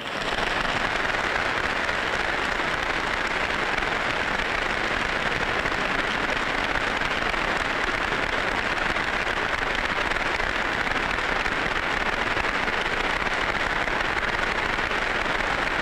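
A large audience applauding, a dense, steady clatter of clapping that holds at one level without a break.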